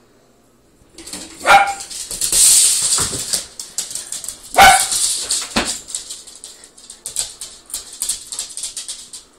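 A sheltie barking sharply twice, about three seconds apart, while dogs' claws scrabble and click on a wooden floor as they chase a laser dot.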